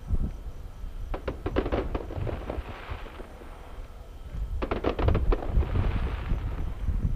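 Aerial fireworks going off: two quick volleys of sharp bangs, about a second in and again near five seconds, each trailing off in a hiss.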